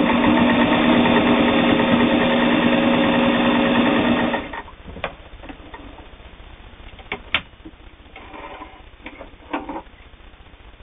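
All-metal, gear-driven Singer 401A sewing machine running at speed, its motor humming steadily as it stitches through two layers of heavy denim, for about four seconds before stopping abruptly. A few sharp clicks and handling sounds follow as the handwheel is turned and the cloth is moved.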